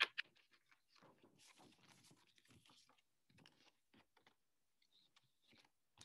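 Faint rustling and light ticks of paper sheets being handled and shuffled.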